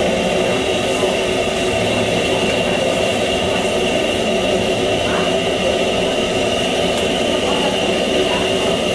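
Steady whirring hum of a commercial kitchen fan running at a constant speed, with a high whine held on top.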